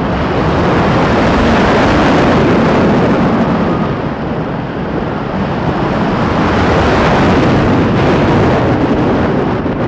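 Steady rush of wind over the microphone of a front-row on-ride camera on a B&M wing roller coaster in motion, mixed with the rumble of the train on the track.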